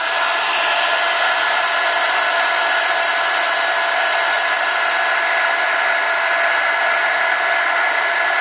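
A hot-air blower running steadily, a rush of air with a thin steady whine, heating the adhesive on an iPhone 5's front-camera and microphone assembly to loosen it.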